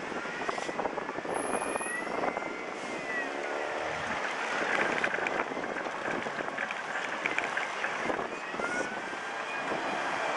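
Busy city street traffic: a steady rush of passing cars and buses, with a whining tone that rises and falls in pitch twice.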